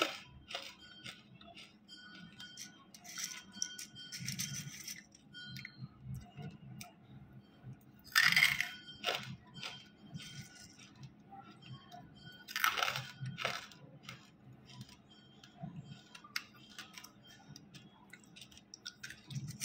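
Hard, chalky pieces of banslochan being bitten and crunched, in separate bursts every few seconds, with small clicks between them.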